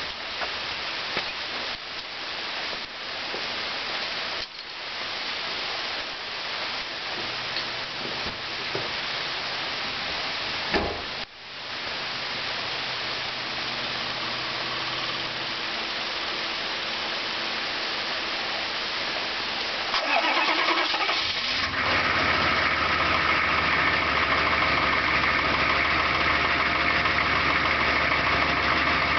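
A truck's 6.5-litre diesel V8 cold-started in the rain: after a stretch of rain noise, it cranks about twenty seconds in, catches, and settles into a steady idle.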